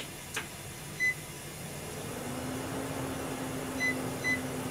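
Three short electronic beeps from a gas stove's control panel as its oil-temperature setting is keyed in, one about a second in and two close together near the end. A sharp click comes just before the first beep, and a low steady hum starts about two seconds in.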